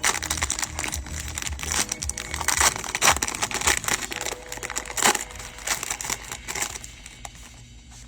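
Trading-card pack wrappers crinkling and tearing as packs are ripped open by hand, a dense run of crackling that dies away about seven seconds in, over background music.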